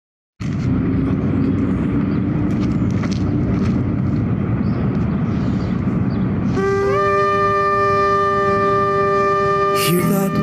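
Shofars (ram's horns) blown: a rough, buzzy blast starts about half a second in, then a clear long note rises slightly and holds steady for about three seconds.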